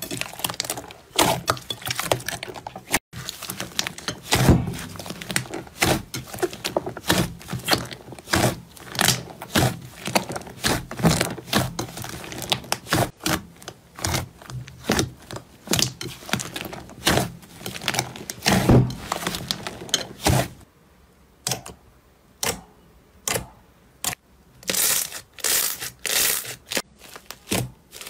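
Hands squeezing and kneading large lumps of slime: squelching with frequent sharp pops and crackles as trapped air bursts out. There is a quieter, sparser stretch about three-quarters of the way through.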